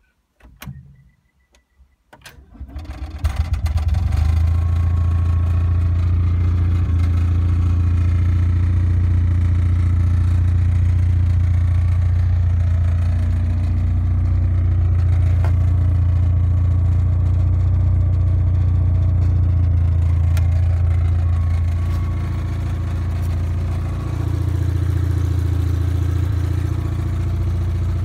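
Honda TN-V kei truck's 360cc air-cooled two-cylinder engine starting about two seconds in and settling into a steady idle. The level dips briefly around twenty-two seconds and then picks back up.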